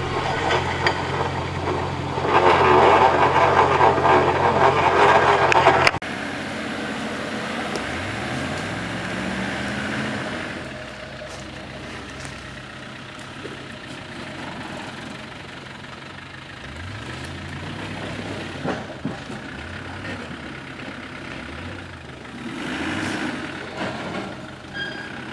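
Land Rover 4x4 engine running steadily, with a loud rushing noise over it for a few seconds; then, after a cut, the engine revving up and back down several times as the truck works up a slippery, muddy climb.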